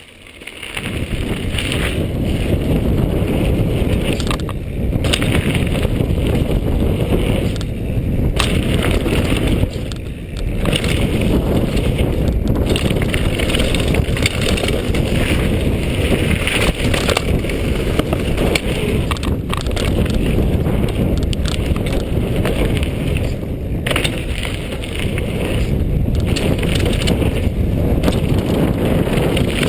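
Mountain bike ridden fast down a dirt and gravel trail, heard from a chest-mounted camera: a steady heavy rush of tyre rumble and wind on the microphone with rattling clicks from the bike. It builds up about a second in as the rider gets going.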